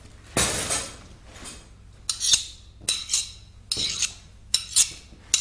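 Metal tools being handled: a duller knock about half a second in, then a run of sharp, briefly ringing clinks and clatters as the pieces knock against each other.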